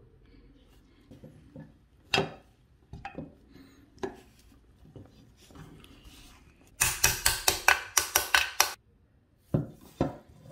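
Metal clinks and knocks as a grease-packed roller bearing is handled and fitted into the mower deck, with a quick run of about ten sharp metal taps, roughly five a second, lasting about two seconds, then two single knocks.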